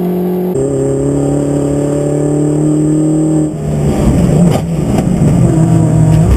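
MINI John Cooper Works race car engine at racing speed, heard from inside the cabin. The engine note changes abruptly about half a second in, then falls slowly for about three seconds. About three and a half seconds in it switches to a rougher, noisier engine sound.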